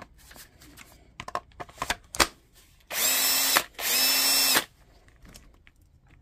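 Hilti cordless power tool triggered twice in quick succession, its motor whining up to speed for under a second each time on the freshly balanced battery. A few clicks and knocks of handling come first.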